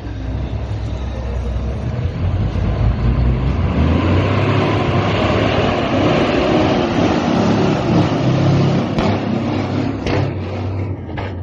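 Diesel engine of an International semi-truck hauling a flatbed trailer, running loud through its exhaust as the rig pulls off and drives past. The sound swells over the first few seconds, then eases near the end as the truck moves away.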